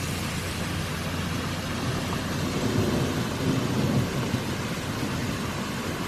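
Water rushing down a rocky hillside in several cascades and running across a flooded road: a steady, noisy rush with a heavy low rumble underneath.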